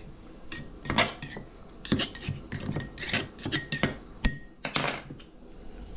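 A table knife clinking and scraping against the inside of a small metal mortar, getting out crushed ginger: an irregular run of sharp metallic clinks, some ringing briefly.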